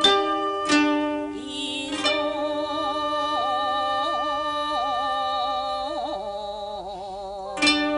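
Background music: held, wavering melodic tones with a few sharp struck notes, one near the start, another just after, one about two seconds in and one near the end.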